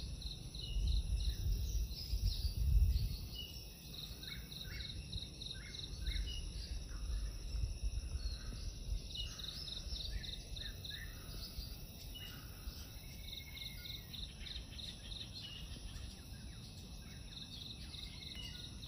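Tropical rainforest ambience: a steady high drone of insects, with birds or insects repeating runs of quick chirps and short falling whistles. Low gusty rumbles of wind on the microphone come about a second in and again around six seconds in, the loudest near three seconds.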